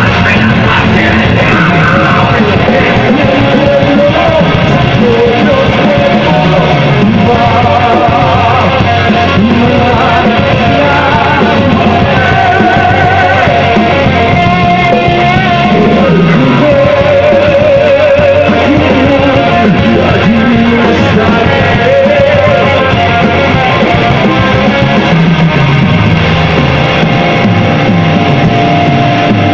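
Live rock band playing loud: distorted electric guitars, bass and drums, with a singer over them.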